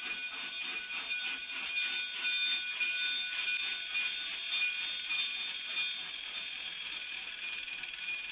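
Narrow-gauge passenger car wheels rolling past on a curve, giving a steady high-pitched squeal with a quick run of clicks over the rail joints that eases off about two-thirds of the way through.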